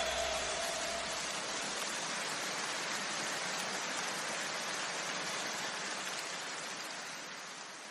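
A steady, even hiss like rain, slowly fading out.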